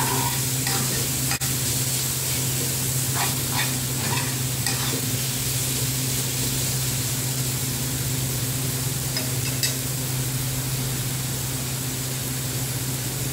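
Chopped tomatoes sizzling in a metal frying pan on a gas stove, stirred with a metal spoon that scrapes lightly against the pan now and then. A steady low hum runs underneath.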